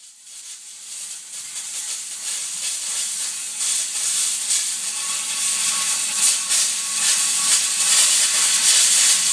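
Plasma cutter cutting through the steel shell of an AC compressor: a loud, steady hiss that builds over the first few seconds, with a faint thin tone joining about halfway through.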